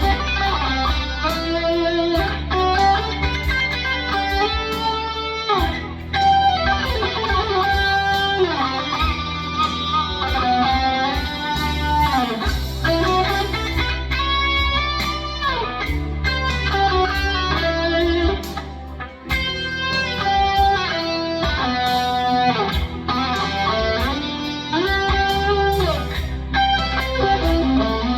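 Rock lead electric guitar improvising in E minor through a Fractal FM9 amp modeler, melodic lines with slides and bends over a steady low backing.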